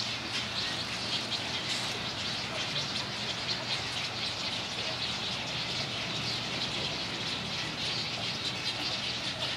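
A steady din of many nesting birds in a rookery colony, all calling and chattering at once, with no single call standing out.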